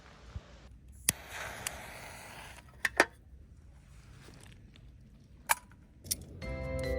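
A few sharp clicks and knocks, with a rustle between the first two. Music begins near the end.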